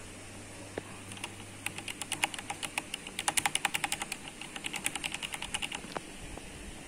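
Typing on a mechanical keyboard: a fast run of key clicks for about four seconds, starting about a second and a half in, with a few single clicks before and after.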